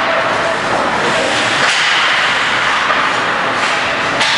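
Ice hockey being played in an arena: a steady hiss of skates carving the ice and rink noise, with sharp clacks of sticks and puck, one about a second and a half in and one near the end.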